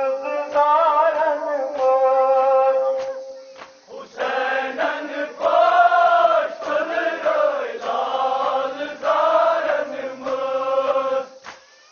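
Voices chanting a nauha, a Muharram lament, in long, held, wavering phrases. The chanting dips a little under four seconds in and stops shortly before the end.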